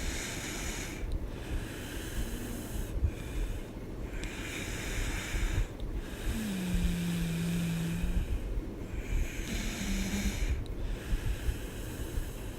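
A woman snoring hard in her sleep: long, noisy breaths in and out, each lasting two to three seconds. A low, drawn-out hum runs through one breath near the middle.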